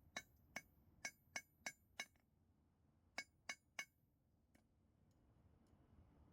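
Hammer striking metal on an anvil in light, ringing blows: six at about three a second, then after a short pause three more and one faint tap.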